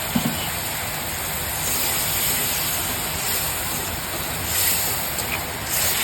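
Steady hiss of chicken curry sizzling and steaming in a cooking pot, with one brief low knock just after the start.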